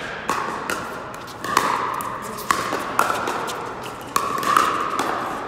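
Pickleball rally: paddles striking a hard plastic pickleball in a quick exchange, about eight sharp pocks each followed by a short ring.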